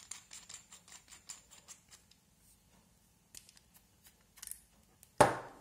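Needle-free hyaluron pen being unscrewed by hand: quick small clicks of its metal nozzle and syringe threads turning, dense for the first two seconds, a few more later, then one louder knock near the end.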